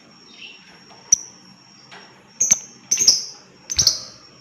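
Lovebirds giving shrill, sharp chirps: a single chirp about a second in, then quick bursts of chirps near the middle and end, the loudest around three and four seconds in.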